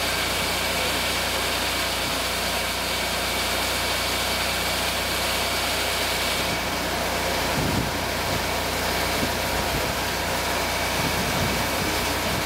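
Grain auger running steadily, the drone of its driving engine with a high steady whine, as grain feeds from the hopper into the auger intake.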